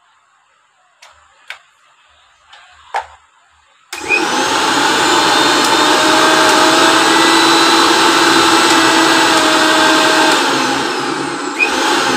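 A few sharp clicks of handling, then about four seconds in a Prestige mixer grinder's motor switches on and runs steadily at high speed with no jar fitted, easing slightly near the end. This is the test run of the reassembled machine after its armature and coupling were refitted.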